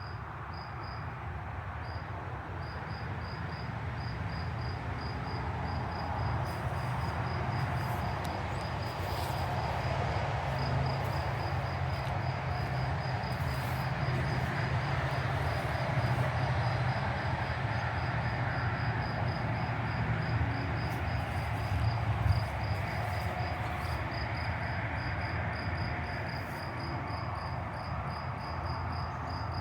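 Insects chirping outdoors in a fast, even high-pitched pulse that keeps on steadily, over a broad low rumble that builds over the first several seconds and eases near the end.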